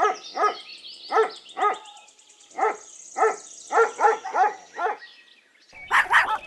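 Dog barking repeatedly, about two to three barks a second, with short pauses. Near the end a noisier stretch of barking starts.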